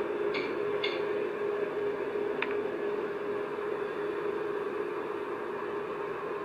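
A steady low hum over a constant hiss, the kind of recording passed around as the mysterious 'strange sounds' or 'earth groaning'. Two short scratchy noises come near the start, and a faint tick comes a couple of seconds in.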